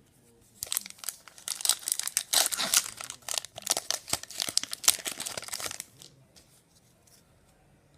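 Wrapper of a 2015-16 Upper Deck SPX hockey card pack being torn open and crinkled by hand, a dense crackling that starts about half a second in and stops about six seconds in.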